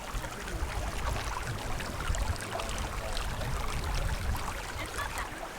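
Steady rush of water from a nearby waterfall and stream, with a low rumble underneath.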